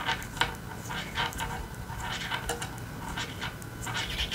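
Metal knitting needles clicking and scraping against each other with yarn rubbing as stitches are knit, a run of small irregular clicks and rustles with a sharper click about half a second in.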